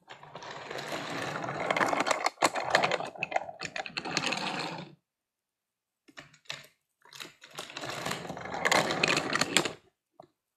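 Plastic toy train pieces clattering and rattling as they are shaken and knocked about, in two bouts of a few seconds each with a short pause between.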